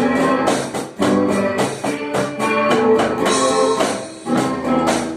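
Instrumental passage of a rock song: guitar with a tambourine keeping a steady beat, no singing.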